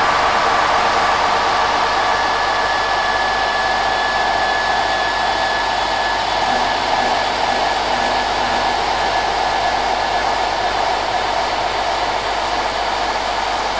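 Steady synthesized noise drone: a dense rushing hiss concentrated in the middle register, with a faint thin high tone held through the middle of it.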